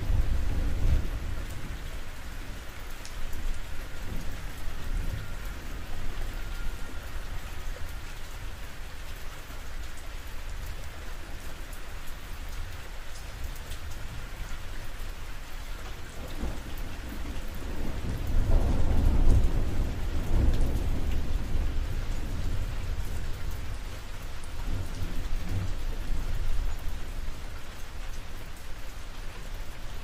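Steady rain falling on a roof, with low rolls of thunder. The longest and loudest roll comes about two-thirds of the way through, and a smaller one follows a few seconds later.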